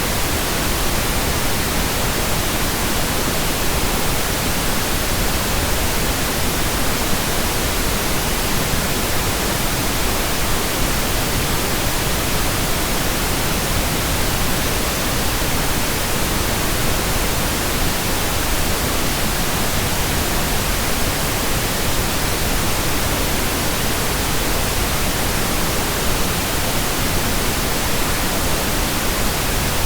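Steady pink noise: an even hiss spread from deep rumble to high treble, with no change in level.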